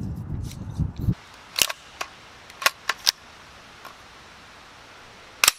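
Wind buffeting the microphone for about the first second, then about seven sharp, irregular metallic clicks from an AR-15 pistol and its parts being handled, the loudest near the end.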